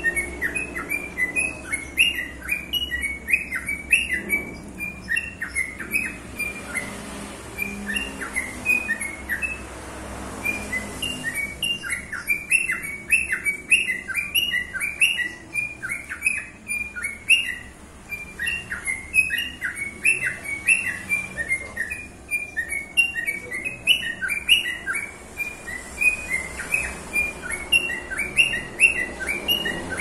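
Caged lovebird singing a long, continuous chatter of rapid high chirps, thinning out for a few seconds about seven seconds in before picking up again.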